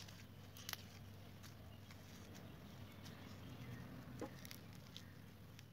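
Faint, sparse crackles and clicks of microfoam-bead slime being squeezed and kneaded by hand, over a low steady hum.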